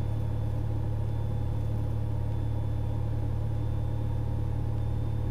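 Cessna 182's engine and propeller droning steadily in flight, a low, even hum with no change in power.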